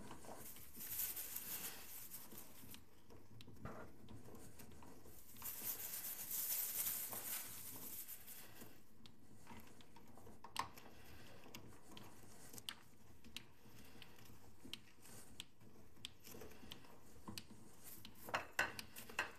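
Hand-cranked metal meat grinder crushing dry cookies into crumbs: two stretches of gritty crunching and rasping, then scattered clicks and knocks from the turning grinder.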